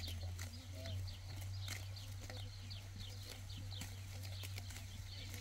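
Sheep grazing close by, cropping grass in quick irregular tears and chewing, with small birds chirping in short falling notes.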